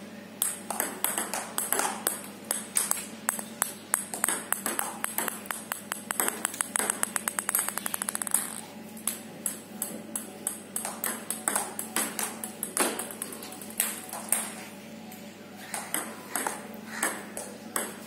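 Table tennis rally: a plastic ball clicking off rubber paddles and the table in quick, irregular hits. About seven seconds in, a run of bounces comes faster and faster.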